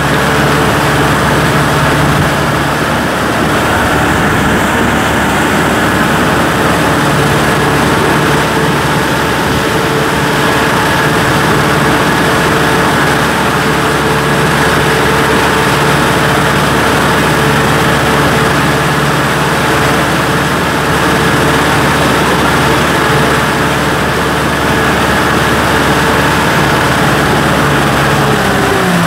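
Kubota M6040 SU tractor's four-cylinder diesel engine running steadily as the tractor drives along a field track, heard up close from the driver's platform. The engine note drops slightly near the end.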